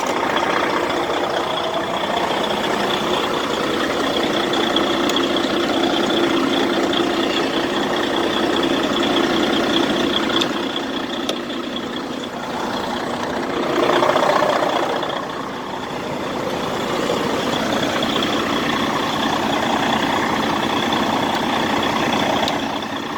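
Freightliner Cascadia's diesel engine running steadily after being started by bridging the starter solenoid, swelling briefly louder about two-thirds of the way through.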